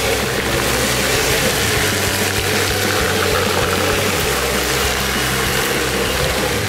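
Off-road 4x4 engine running as the vehicle drives through mud: a steady, loud, dense noise with no breaks.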